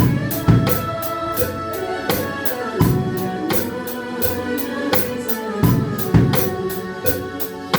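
Music with a drum kit: steady hi-hat strokes about four a second and regular bass drum hits under sustained melody notes.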